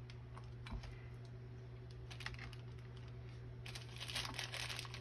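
Light clicks of small hardware being handled, then, about three-quarters of the way in, a plastic parts bag crinkling steadily as it is rummaged through for screws and springs.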